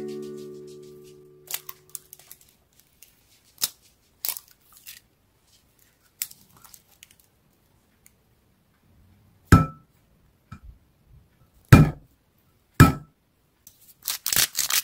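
Kitchen handling sounds: scattered soft clicks and rustling, then three sharp knocks on a hard surface, each with a short ring, followed by a fast run of clicking near the end.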